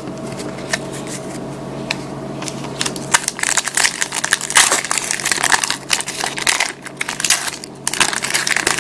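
Foil wrapper of a trading-card pack being torn open and crinkled by hand, a dense irregular crackling that picks up about three seconds in.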